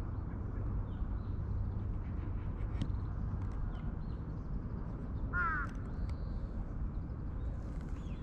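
Steady low outdoor background rumble with faint high bird chirps, and one short, louder bird call about five seconds in, a caw-like call.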